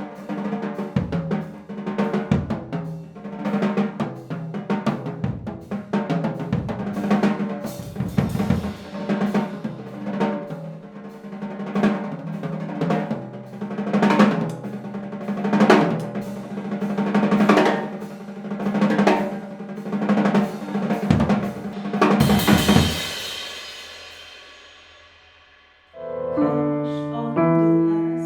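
Free-improvised music: a drum kit played busily on snare, bass drum, hi-hat and cymbals over a held low note, building in swells about every two seconds. The drumming stops near the end on a cymbal wash that rings and fades out. Piano chords then come in.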